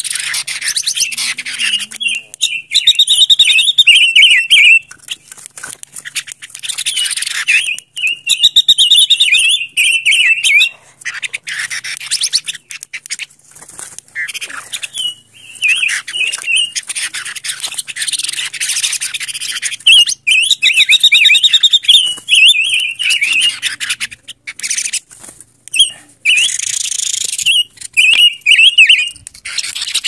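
Silver-eared mesia singing: five loud warbled phrases, each a quick run of notes, coming every few seconds over a steady hiss.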